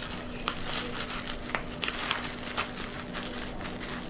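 Small scissors snipping through masking tape on bubble-wrap packaging, with the plastic wrap crinkling as it is handled: irregular crackles and snips.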